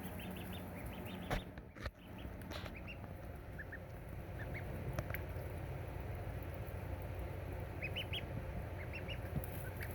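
Pekin ducklings peeping: many short, high cheeps, busiest at the start and again near the end. Two sharp knocks sound about a second and a half in.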